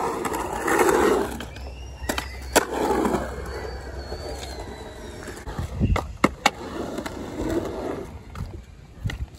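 Skateboard wheels rolling on concrete, broken by several sharp clacks of the board against the ground.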